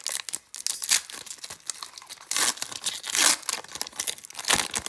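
Foil wrapper of an Upper Deck hockey card pack being torn open and crinkled by hand: a run of crackles with a few louder rips partway through and near the end.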